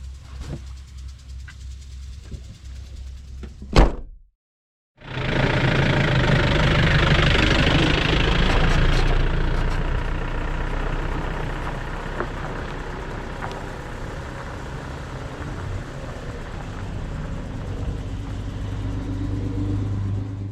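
Car engine hum and road noise: a quieter low hum, a sharp click about four seconds in and a second of silence, then louder steady driving noise that swells and settles.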